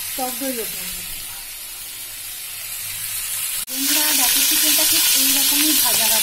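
Chicken pieces frying in hot oil in a pan: a steady sizzle that gets suddenly louder about three and a half seconds in.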